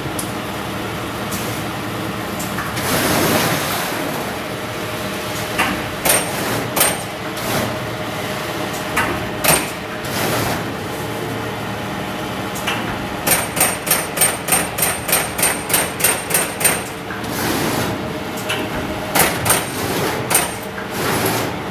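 CNC punch press punching sheet metal. Over a steady machine hum come scattered single punch strokes, then, about halfway through, a fast even run of punches at about three a second for some four seconds, with a few swells of hiss between.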